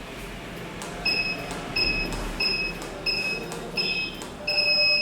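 Burglar alarm keypad of an ATSS Active 207 panel beeping as keys are pressed to enter the default password that arms zone 1. There are five short high-pitched beeps, each with a small key click, about two thirds of a second apart, then a longer beep near the end.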